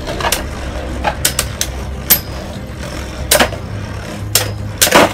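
Two Beyblade Burst spinning tops, Ultimate Valkyrie and Rage Longinus, whirring on the floor of a plastic Beyblade stadium, with a steady low hum and sharp clacks each time they hit each other or the stadium wall. The clacks come at uneven intervals, and the loudest cluster comes near the end.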